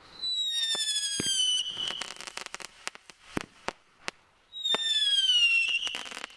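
Two whistling consumer fireworks going off, each a high whistle sliding down in pitch for about a second and a half. Each whistle is followed by a scattered string of sharp crackling pops.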